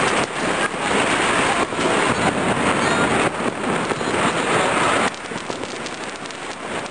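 Dense, continuous crackle of many firecrackers going off at once, a rain-like roar of rapid pops. It drops in loudness about five seconds in, leaving a thinner, rapid crackle.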